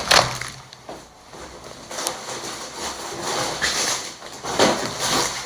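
Grocery packaging and bags rustling and crinkling as food items are handled and unpacked, with a few sharp knocks of items being set down, the loudest right at the start.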